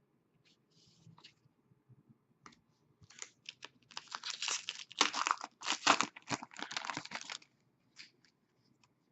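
A foil trading-card pack being torn open and its wrapper crinkled: a burst of crackling, tearing rustle about three seconds in, lasting about four seconds, with faint ticks of cards being handled before and after.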